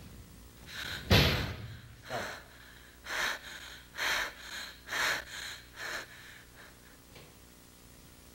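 A restroom door slams shut about a second in, the loudest sound. A woman then pants heavily, about one loud breath a second, and the breaths grow fainter near the end.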